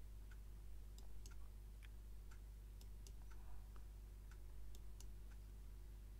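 Faint computer mouse clicks, about a dozen at irregular spacing, over a steady low electrical hum.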